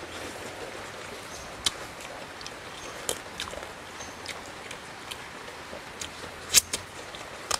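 Close-up eating sounds: chewing and sucking frog meat off small bones by hand, with scattered sharp crunches and lip smacks, the loudest a little before the end, over a steady background hiss.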